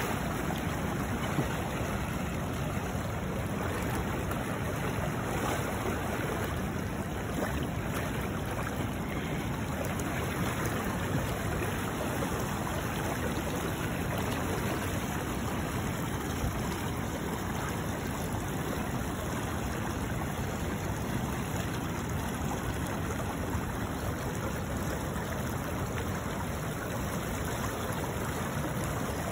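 Steady rush of a fast river current, an even wash of running water with no breaks.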